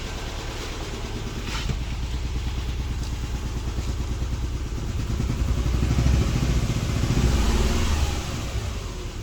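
Subaru Impreza's flat-four engine running with an uneven, missing beat from a misfire on cylinders 1 and 3. It gets louder for a few seconds past the middle, then settles back.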